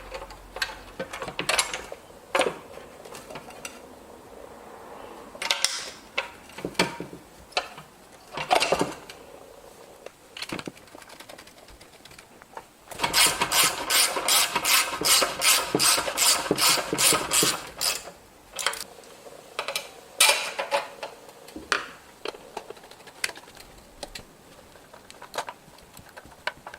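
Hand work on a small Briggs and Stratton mower engine: scattered clicks and knocks of tools and parts being fitted, with a run of rapid, even clicking from a ratchet-type tool for about five seconds in the middle, the loudest part.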